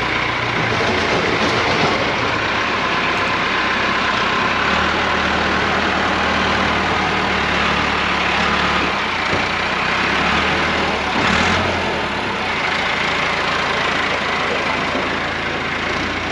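Farm tractor's engine running steadily, its note shifting slightly now and then.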